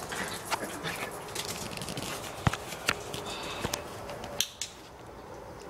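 Handling noise: a series of sharp clicks and taps against a plastic tub with light rustling of dry leaves.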